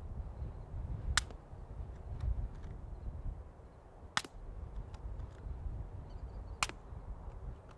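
Three suppressed rifle shots, about two and a half to three seconds apart, each a short sharp crack. The rifle is fired through an AB Suppressor Raptor 7.62 on a flush mount with 220-grain Hush ammunition, and is heard from 50 yards away.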